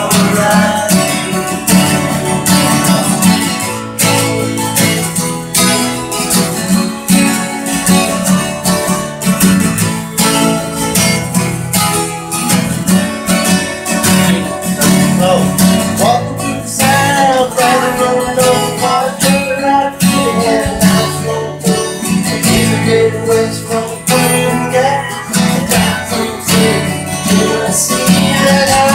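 Two acoustic guitars strumming chords together, with a harmonica playing along over them in a live, unamplified jam.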